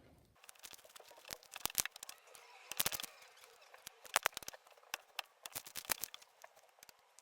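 Fluffy slime with instant snow and water being mixed: quiet, irregular sticky clicks and crackles in loose clusters.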